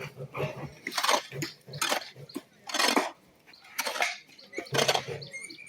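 Hand digging with a metal tool in a pit: a series of short scraping strikes into the earth, about one a second.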